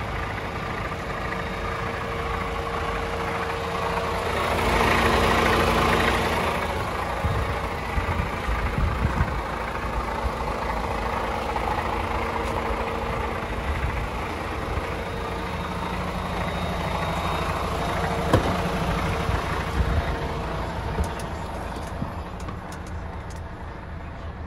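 DAF XF106 truck's Paccar 440 bhp Euro 6 diesel engine idling steadily. There is a brief louder rushing noise about five seconds in and a few sharp knocks near the end.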